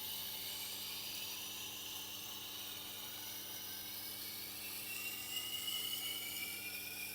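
Tormek grinder running, with the steel edge of a Miyabi chef's knife hissing against the slowly turning grinding wheel over a steady motor hum. A faint high whine rises about five seconds in.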